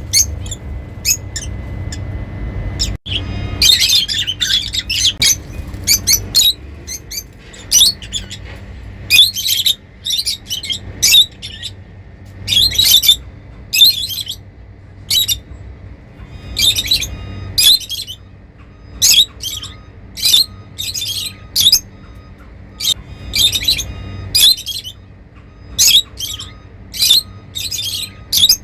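Lovebirds chirping and squawking in short, shrill bursts that come about once a second, with a brief break about three seconds in.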